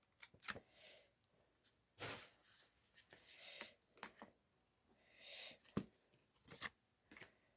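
Faint handling noises: scattered light clicks and short rustles of photocards and paper being handled and sorted.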